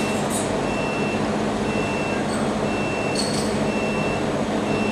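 Steady hum of machinery, with a high electronic beep repeating about once a second. About three seconds in, a short metallic clink as a laser-cut stainless steel part is pulled free of the sheet with pliers.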